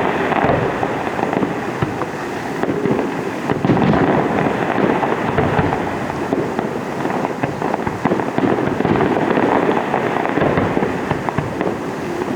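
Fireworks display going off in a dense, continuous run of overlapping pops, crackles and bangs.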